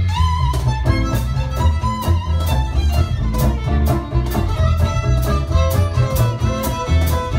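Live band playing an instrumental tune: violin carrying the melody over acoustic guitar, upright double bass and a drum kit keeping a steady beat on snare and cymbals.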